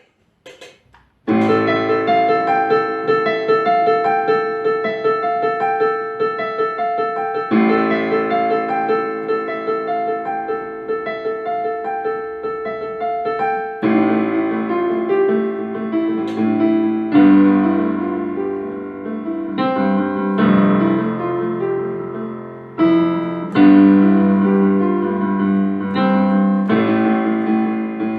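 Background piano music, a steady run of notes and chords, starting about a second in after a couple of brief clicks.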